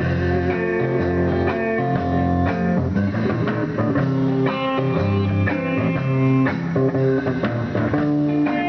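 Live blues band playing an instrumental passage: an electric guitar plays bending melodic lines over a low bass line, with a drum kit keeping a steady beat.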